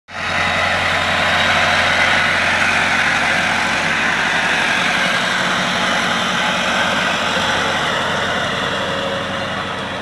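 Farm tractor's diesel engine running steadily under load as it pulls a spinner-type potato digger through the soil.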